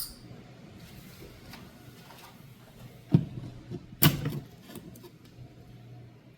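Light clicks and handling noises from work on a wall-switch faceplate, with two sharp plastic-and-metal knocks about a second apart near the middle, the second followed by a short rattle.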